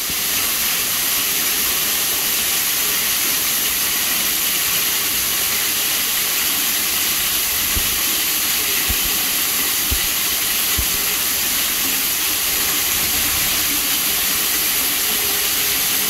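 Waterfall pouring over a cave mouth: a steady, loud hiss of falling water and spray. A few brief low thumps come in the second half.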